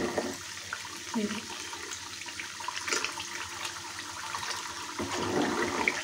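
Butter simmering into ghee in a kadhai: a steady frying sizzle with many small crackles. It is the last stage of clarifying, with the milk solids browning and the ghee almost done.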